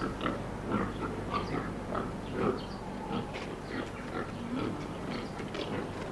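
A group of pigs grunting in a pen, short calls coming one after another and overlapping, over a faint steady low hum.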